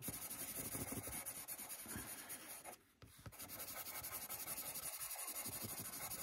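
Lightwish pastel pencil scratching across paper in quick, short hatching strokes, laying in green tree foliage, with a brief break a little under three seconds in.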